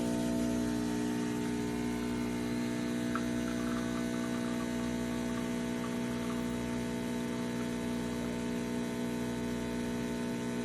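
Espresso machine pump running with a steady buzzing hum, then cutting off abruptly near the end.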